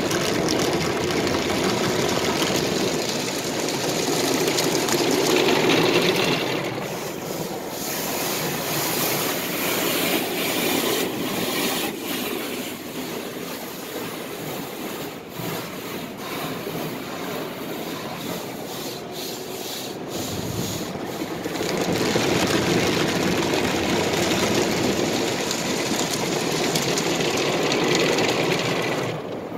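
Sonny's tunnel car wash heard from inside the car: cloth brushes scrubbing over the body and water jets spraying onto the glass, a steady rushing noise. It eases off in the middle, with some sharp slaps, and swells again about two-thirds of the way through.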